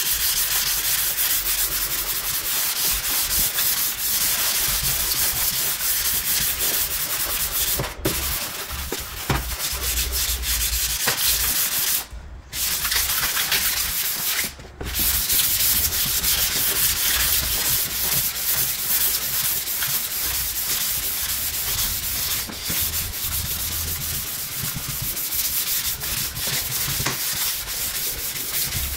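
Sandpaper on a hand sanding pad rubbing over the painted front wing and bonnet of an Audi A6 4F in steady back-and-forth strokes, scuffing off damaged clear coat. The scratching pauses briefly twice near the middle.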